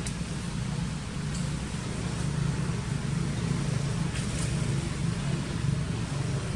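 Steady low drone of outdoor background noise, even throughout, with a few faint high ticks.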